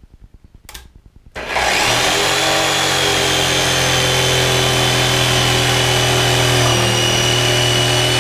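DeWalt DW317 jigsaw (5.5-amp motor) starting about a second and a half in, then running steadily as its long blade cuts through a 2x3 board.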